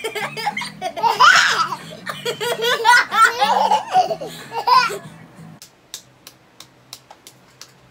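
Toddler laughing hard in repeated bursts over background music with a steady bass line. The laughter and music stop about five and a half seconds in, leaving a few faint clicks.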